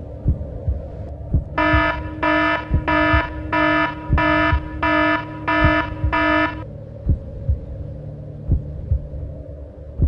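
Dull low thumps like a slow heartbeat over a steady low hum. About one and a half seconds in, a pitched electronic alarm tone beeps eight times in an even rhythm, stopping about five seconds later.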